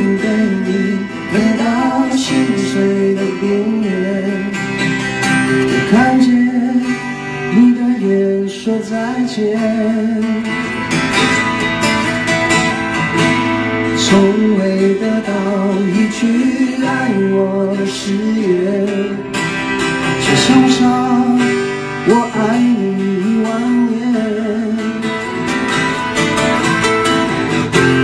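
Two acoustic guitars played live with a man singing over them.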